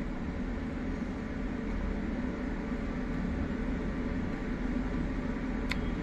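Steady low room hum and hiss, with one sharp click near the end as one side of a laptop RAM module snaps into its memory slot.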